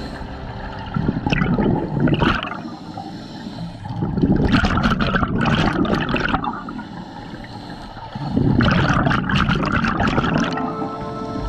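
Scuba diver's regulator underwater: exhaled bubbles burst out in three noisy gushes a few seconds apart, with quieter breathing between them.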